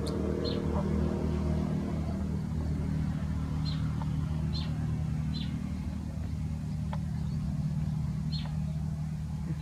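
A steady low engine-like hum, with several short high chirps scattered through it.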